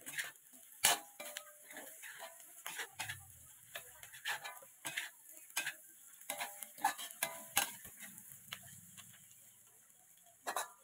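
Metal spatula knocking and scraping against a stainless steel wok while stir-frying, in irregular clanks, some with a short metallic ring, over a faint sizzle.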